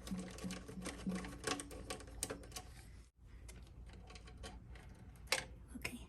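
Quick clicks and taps of tools and parts being handled while the back of a refrigerator is taken apart. A short low hum repeats about two or three times a second in the first second.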